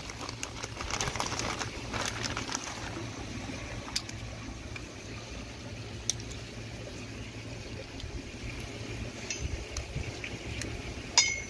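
Hands handling a plastic landscape-lighting wire connector and low-voltage cable: light rustling and scattered clicks, busier in the first few seconds, with a sharper click that rings briefly near the end. A steady low hum runs underneath.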